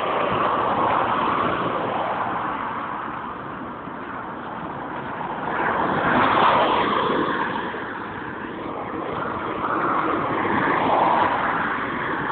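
Road traffic: cars passing one after another, their noise swelling and fading about three times.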